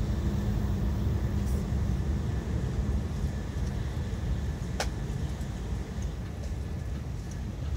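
Steady low rumble inside a running Shinkansen bullet train's passenger cabin, with a single sharp click about five seconds in.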